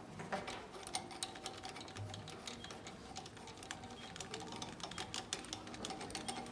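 Light, irregular metallic clicks and taps, several a second, as the compression tester's brass hose fitting and adapter are handled and turned at a glow-plug port of a Renault K9K diesel engine.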